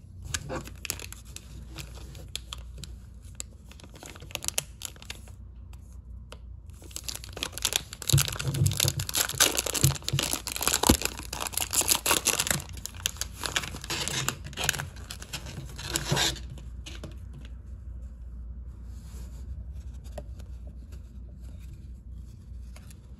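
Wrapper of a Panini Prestige football card pack crinkling and tearing open by hand. It starts as scattered crackles and grows into a long stretch of dense ripping and crinkling, then drops about two-thirds of the way in to soft rustling as the cards are handled.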